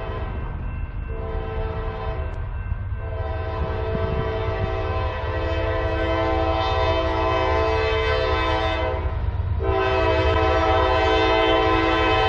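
Norfolk Southern diesel locomotive's air horn sounding a chord in several blasts with short breaks, one held about six seconds, over a steady low rumble, growing louder as the train approaches.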